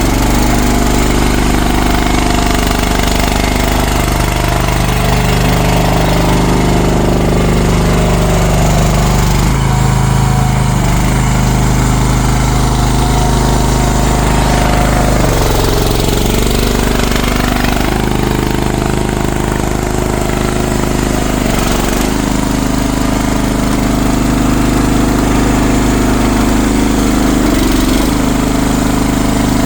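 CFG MX15RX mini excavator's engine running steadily, with its tone dipping briefly a few times as the hydraulics take load.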